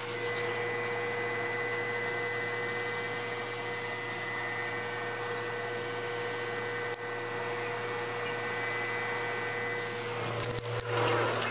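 Steady machine hum and hiss with a few constant tones, like an appliance or fan running, ending in a brief rustle near the end.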